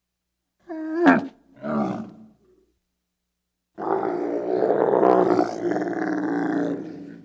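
Camel calling: two short calls about a second in, then one long, rough bellow lasting over three seconds that fades away near the end.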